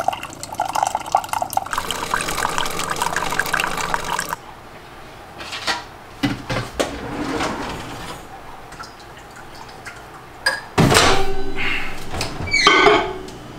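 Single-serve pod coffee maker dispensing coffee in a stream into a ceramic mug, a gurgling, splashing pour for about four seconds. Then scattered clicks and knocks of handling, and a louder rushing noise for a couple of seconds near the end.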